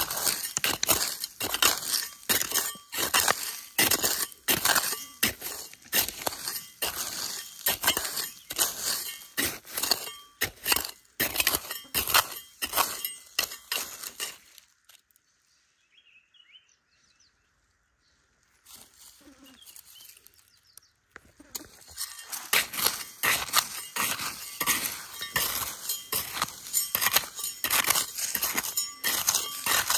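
Small metal hand trowel scraping and digging into dry, gravelly soil: quick gritty scrapes with clinks of the blade on small stones. The digging stops for several seconds about halfway through, then starts again.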